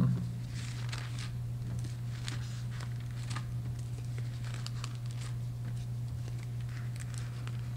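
Thin Bible pages being turned and rustled by hand: a run of soft, irregular paper crinkles over a steady low hum.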